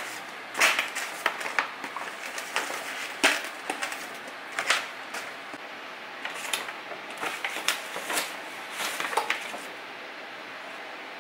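Paper shopping bag rustling and crinkling in irregular bursts, with light knocks of a clear plastic deli container being lifted out and set down on a table; the handling dies down near the end.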